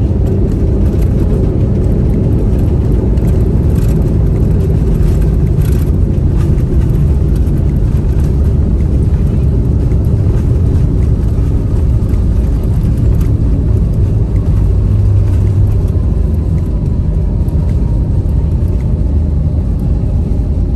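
Steady low rumble inside the cabin of an Airbus A321neo on arrival, from its engines and the airframe.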